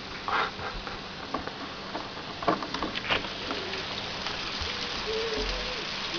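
Heavy rain falling steadily, with a few short knocks or taps in the first few seconds.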